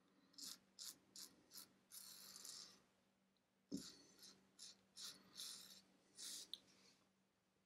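Mühle R41 safety razor with a Feather blade scraping through lathered beard stubble in a run of short, crisp strokes, with a pause in the middle. A single soft knock comes near the middle of the run.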